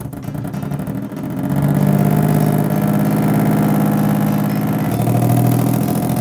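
Engine running with a fast, even pulse. It grows louder about a second and a half in, then holds steady with a slight change in pitch near the end.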